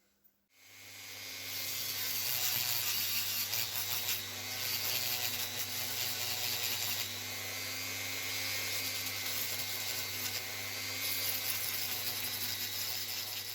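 A small electric power tool spins up about half a second in and runs steadily, with a constant hum under a loud hissing grind of the tool working against the piece.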